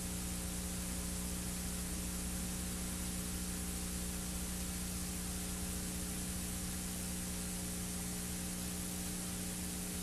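Steady hiss with a low electrical hum of several steady tones underneath, unchanging throughout.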